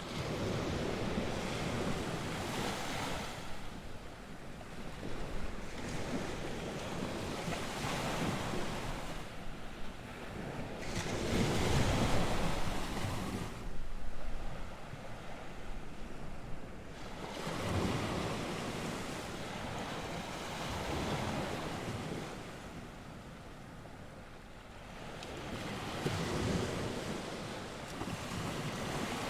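North Sea waves breaking and washing on the shore, the surf swelling and falling back every few seconds, with wind buffeting the microphone.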